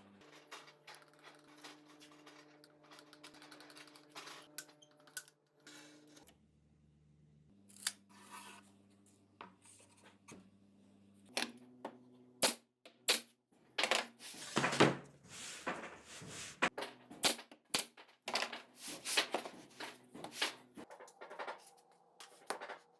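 Irregular sharp taps, clicks and scraping from hand work on wood and tools, sparse at first and then dense and louder from about eleven seconds in, over soft sustained low tones that shift in pitch every few seconds.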